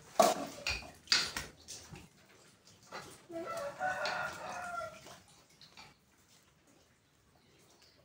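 Two sharp thumps come near the start. Then a rooster crows once, a call lasting about two seconds.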